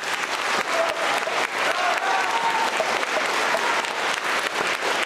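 A large crowd applauding.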